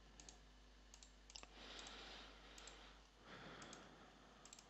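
Near silence with faint, scattered clicks of a computer mouse and keyboard, and two soft hisses about a second and a half in and just after three seconds.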